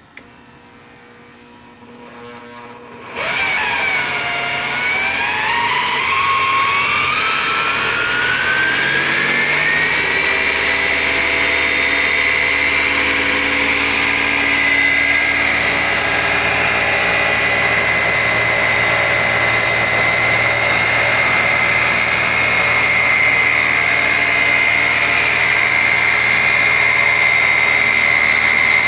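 Craftsman circular saw's brushed universal motor, driving a homemade wood lathe, switched on about three seconds in. Its whine rises in pitch for several seconds as it spins up, then runs steady at full speed.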